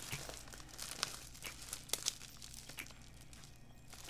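Plastic bubble wrap crinkling and crackling as it is handled and unwrapped, with a few sharper crackles about one and two seconds in. A low steady hum runs underneath.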